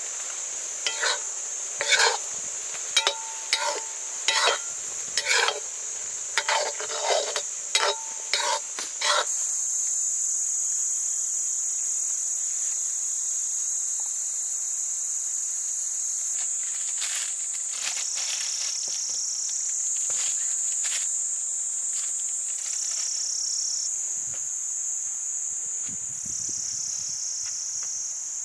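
A steady, high-pitched chorus of insects runs throughout. For the first nine seconds it is broken by about a dozen sharp metallic clinks and scrapes, some ringing briefly, like a utensil striking a pot or pan.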